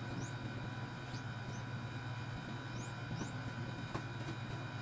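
A steady low hum with several short, high rising chirps. A couple of light taps come near the end as PVC pipe is handled and fitted.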